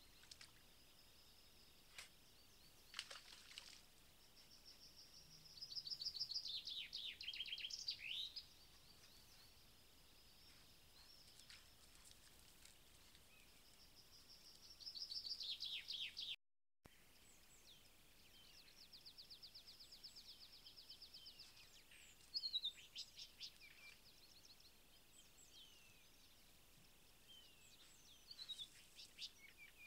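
Small songbirds singing: several trilled phrases a few seconds long, each dropping in pitch toward its end, with scattered short chirps in between, over faint outdoor background hiss.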